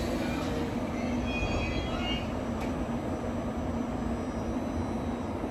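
Steady hum and rumble of JR Kyushu 813-series and 821-series electric trains standing idle at the coupling point, with faint high-pitched tones about a second and a half in.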